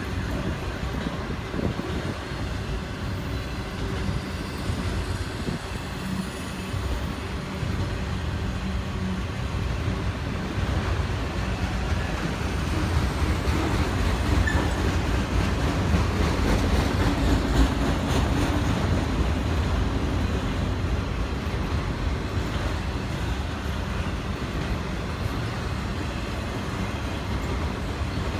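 Long freight train of enclosed autorack cars rolling past: a steady rumble of steel wheels on the rail, swelling a little midway.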